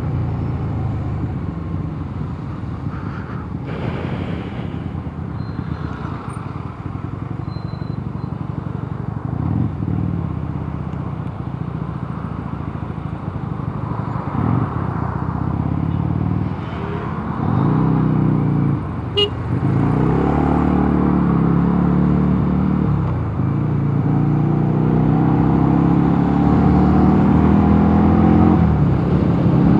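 Mondial Nevada 250 motorcycle engine running under way, with wind and road noise. The engine note climbs as it accelerates in the second half and grows louder toward the end.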